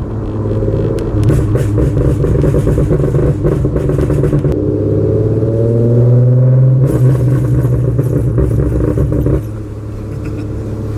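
2011 Ford Mustang's 3.7-litre V6 under a pop-and-bang tune, driven on and off the throttle: the exhaust crackles and pops on the overrun for the first few seconds, revs up in the middle, pops again on lift-off, then settles quieter near the end. The pops come from ignition timing retarded on deceleration above 2,000 rpm.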